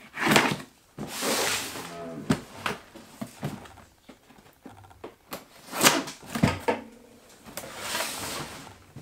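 A large cardboard box being opened: a knife slitting the packing tape, cardboard scraping and rustling, and several sharp knocks as the box is tipped and set down on a wooden table.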